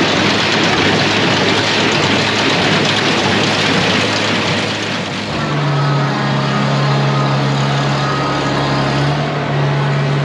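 Tractor with a square baler running, a loud, dense machinery din; about five seconds in it changes to a steadier engine drone.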